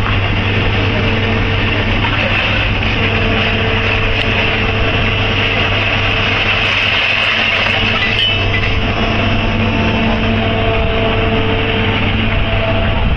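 A construction machine's engine running steadily, a constant drone with an even hum.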